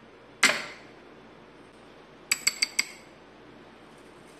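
Metal spoon clinking against a small glass jar of salt while scooping: one sharp ringing clink about half a second in, then four quick clinks close together near the middle.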